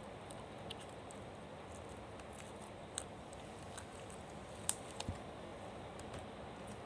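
White slime being stretched and squeezed by hand, giving a few small sticky clicks and pops, the sharpest a little before the middle of the second half, over a steady faint hiss.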